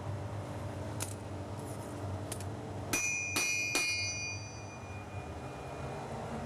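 Hand hammer striking a forged steel knife blade on an anvil: a light tap about a second in and another near two and a half seconds, then three harder blows in quick succession about three seconds in that leave a high metallic ring fading over a couple of seconds. The blade is being hot-forged into a Yakut knife.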